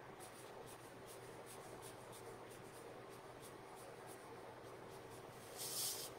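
Faint scratching of a water brush's fine tip painting short flicking lines on watercolour card, with a louder brief rustle near the end.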